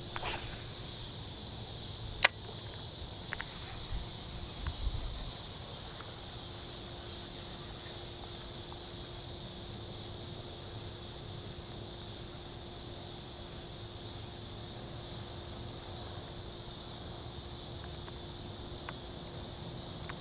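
A steady, high-pitched insect chorus of crickets and similar insects, with one sharp click about two seconds in.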